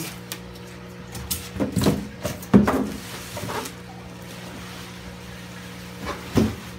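Empty polystyrene foam fish-shipping box being handled and lifted away: a cluster of rubbing, scuffing and knocking sounds in the first few seconds and one more knock near the end, over a steady low hum.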